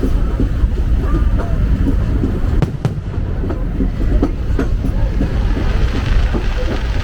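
Disneyland Railroad passenger car rolling on the track: a steady low rumble with a few sharp knocks, the first nearly three seconds in.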